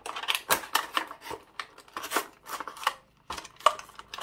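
A hard plastic blister bubble being cut and pried off an action figure's cardboard backing card with a knife: a run of irregular sharp clicks and crackles from the stiff plastic and the card.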